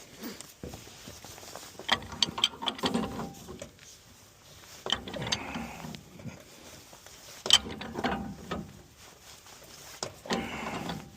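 Irregular clicks, knocks and rattles of tools and metal parts being handled, in several short clusters with handling noise between them.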